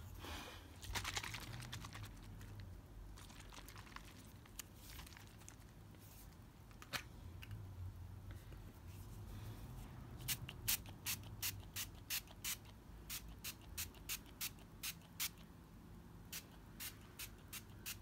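Hand-held spray bottle sprayed again and again, with short sharp squirts; in the second half they come in a quick, even run of about two a second. A few slower, scattered sprays come earlier.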